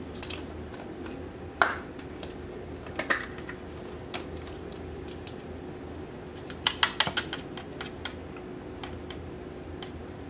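Scattered small clicks and taps of plastic spice jars and a metal measuring spoon handled over a glass bowl, with a quick cluster of taps about seven seconds in. A faint steady hum lies underneath.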